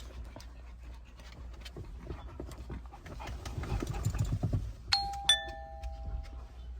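A two-note doorbell-style chime, ding-dong, about five seconds in, the second note lower than the first and both ringing on. Underneath are a faint low rumble and scattered small clicks.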